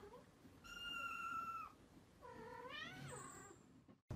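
Kittens mewing faintly: a thin, high-pitched mew lasting about a second, then a second mew a little later that rises and falls in pitch.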